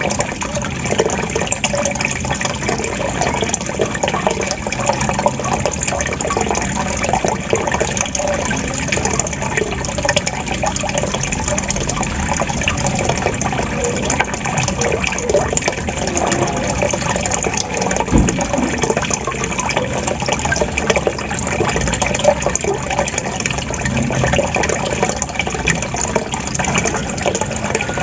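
Water trickling and gurgling steadily, a continuous splashing flow full of small bubbling blips. There is a soft low bump about eighteen seconds in.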